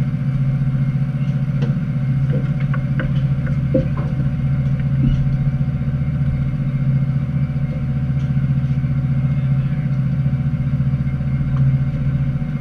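Steady low drone of the fishing party boat's engine running, with a few light clicks and knocks from tackle on deck about two to four seconds in.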